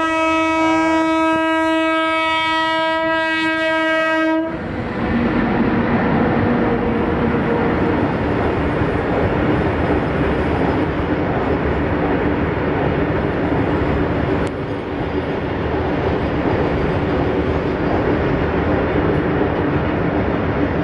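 A train horn sounds one long, steady blast for about four and a half seconds, with a brief dip partway through. Then a long freight train of open wagons passes close by, its wheels rumbling and clattering over the rails at a steady level.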